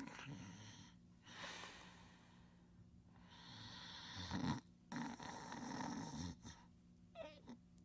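A person snoring in a voice-over: slow, drawn-out noisy breaths in and out, each lasting a second or more, the loudest about four and a half seconds in.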